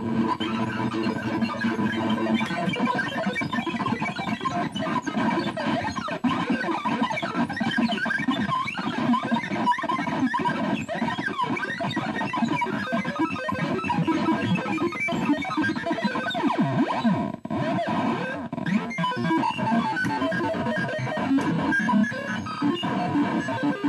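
Circuit-bent Pikachu plush doll's sound chip played through an amplifier, glitching into a dense, warbling electronic racket whose pitches bend and wobble as the board's bend points are touched. It cuts out briefly about two-thirds of the way through.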